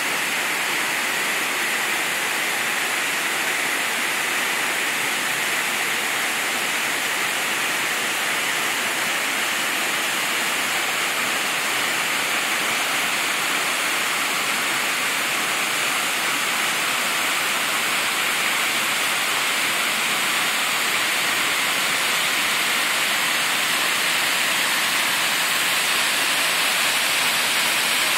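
Steady rush of a small forest creek cascading over rocks, with a waterfall ahead, slowly growing a little louder toward the end.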